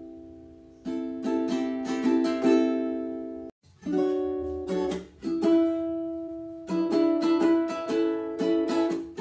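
Transparent ABS plastic concert ukulele in standard G-C-E-A tuning, strummed through a series of chords. The strings are cut off sharply about three and a half seconds in, then the strumming starts again.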